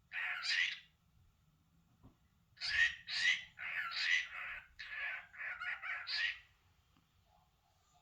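Pet cockatiel calling: one short call at the start, then a run of about seven quick chattered phrases between about 2.5 and 6.5 seconds in.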